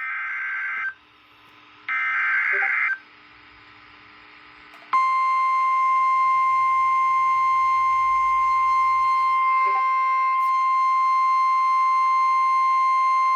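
Emergency Alert System SAME header on NOAA Weather Radio: two harsh, buzzy digital data bursts of about a second each. About five seconds in, the steady 1050 Hz weather-radio warning alarm tone begins and holds, signalling that a warning such as a severe thunderstorm warning is about to be read.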